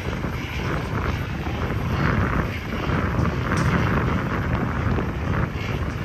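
Heavy diesel dump truck engine running as the truck rolls slowly forward, a steady low rumble that swells slightly in the middle.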